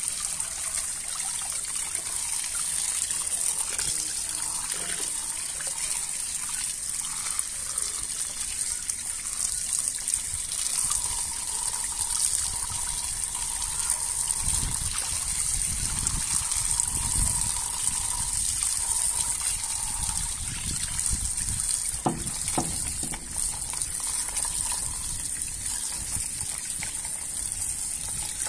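Water splashing and dripping as a plastic toy is swished, dunked and lifted in a bucket of muddy water, with water streaming off it each time it comes up.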